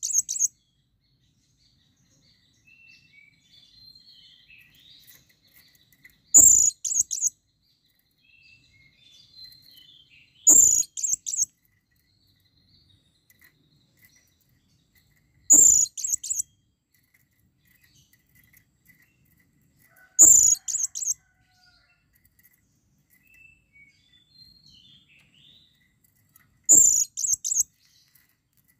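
Male blue-crowned hanging parrot (serindit) giving shrill, very high-pitched calls, each a quick burst of several notes about a second long, repeated six times at intervals of four to six seconds: a breeding call to a female. Each burst opens with a short low thud, and faint small chirps come between the calls.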